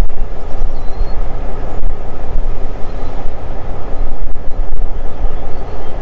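Diesel-electric freight locomotive running with a train of covered hopper cars, a loud, steady rumble of engine and rolling train.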